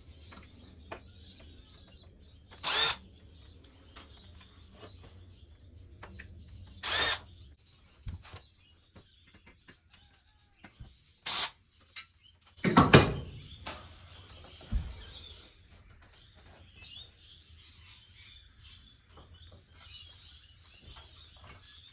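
Cordless electric screwdriver whirring in short bursts every few seconds as screws are backed out of a TV's back panel, with a longer, louder burst and a knock about 13 seconds in. Birds chirp faintly in the background.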